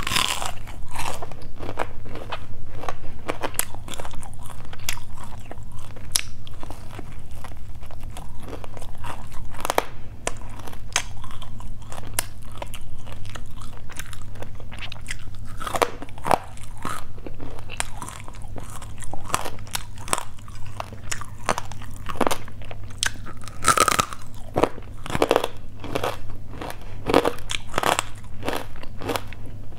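Close-miked biting and chewing of crispy fried pork belly: many irregular crunches as the crisp pieces are bitten off and chewed.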